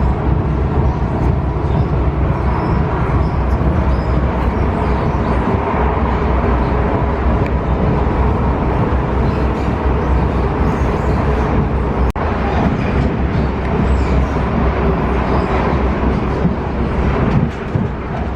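Train running, a loud steady rumble with energy heaviest in the low end, broken by a brief dip about twelve seconds in.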